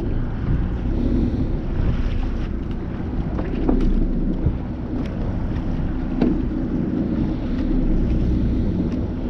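Steady low rumble of a boat at sea, with wind buffeting the microphone and a few faint clicks.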